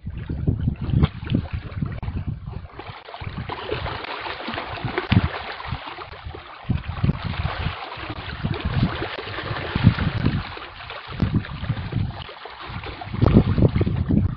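Wind buffeting the microphone in gusts, over a steady splashing and churning of water from a crowd of fish thrashing at the surface as they feed. The splashing hiss is fullest through the middle, and the wind gusts are heaviest at the start and near the end.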